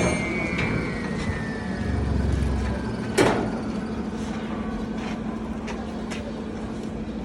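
Double-chamber chana dal grinding mill running with a steady hum, with a few sharp knocks; the loudest comes about three seconds in.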